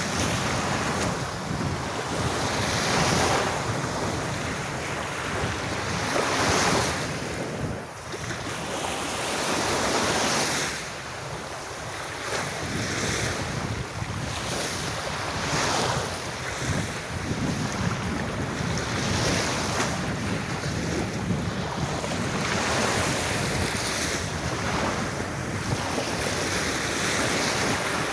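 Sea waves breaking on a beach: a continuous surf wash that swells and eases every few seconds.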